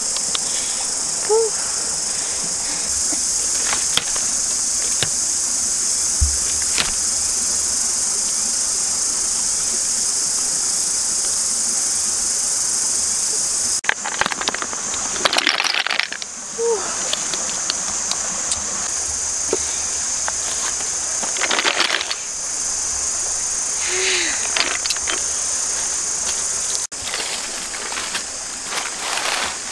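Steady high-pitched insect drone from the surrounding forest, with a few brief rustling noises about halfway through.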